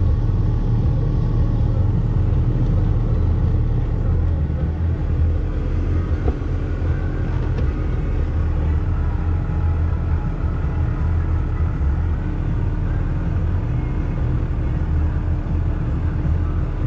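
2001 Dodge Ram 2500's 5.9-litre Cummins inline-six turbo diesel running steadily at low speed, a low rumble heard from inside the cab.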